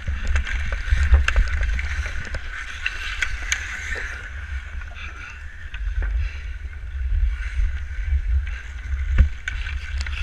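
Wind buffeting a body-worn camera's microphone while a skater skates on outdoor pond ice, with the scrape of skate blades and scattered sharp clicks of hockey sticks on the ice and puck.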